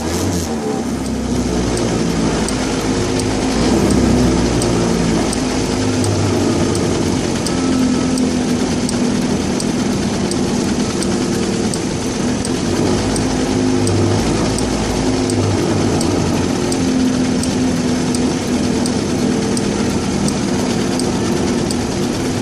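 Small engine of a street go-kart idling while stopped, a steady mechanical chugging close to the microphone.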